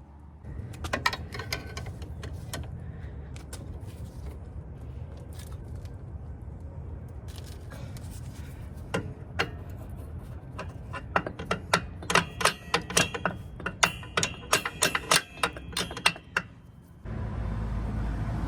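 Metal brake parts and hand tools clinking and clicking against each other while the truck's drum brake shoes are fitted, with a quick run of sharp, ringing metallic clicks toward the end. Near the end a steady low rumble starts abruptly.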